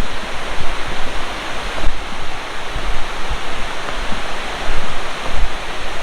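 Steady rushing of a waterfall and river below the cliffs, with low, gusty wind rumble on the microphone.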